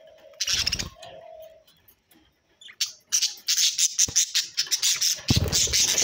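Pet budgerigars chirping and squawking. A short loud call comes about half a second in, then a brief steady note. From about three seconds a fast run of sharp chirps follows, with a flutter of wings near the end as one bird takes off.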